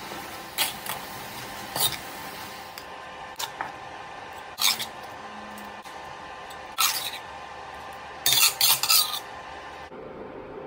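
A spatula scraping and knocking against a stainless-steel wok as stir-fried prawns and greens are tossed and scooped out. There are several short, sharp strokes, with a quick run of them near the end, over a steady hiss.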